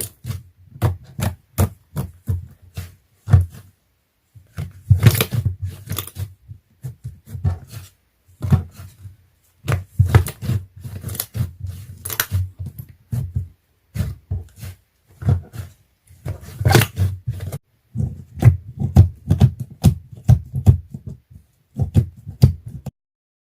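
Slime being squeezed, stretched and poked by hand, making rapid irregular clicking and popping in bursts with short pauses. It stops about a second before the end.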